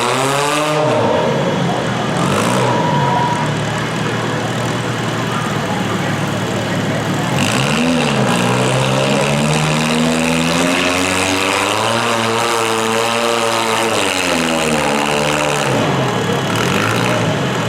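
Demolition derby cars' engines running and revving over steady engine noise, the pitch rising and falling several times, with one long climb and drop near the middle.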